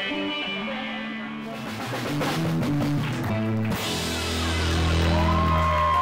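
Rock band playing live, guitars to the fore. A deep, steady bass note comes in a little before the last two seconds.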